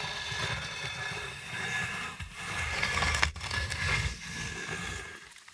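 Designed horror sound effect of a zombie transformation: a low rumble under scraping, crackling body-transformation textures, with one sharp click a little past halfway.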